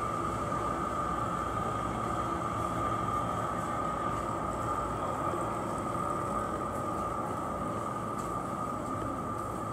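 Steady ambient noise of a covered market arcade, with a continuous high-pitched whine running through it and no distinct events.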